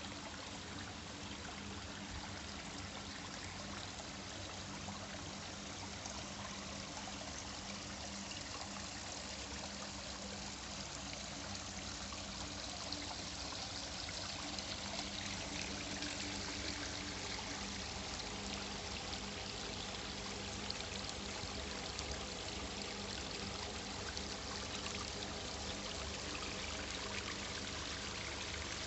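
Steady rush and splash of water pouring down a small artificial garden waterfall, with a faint low hum underneath.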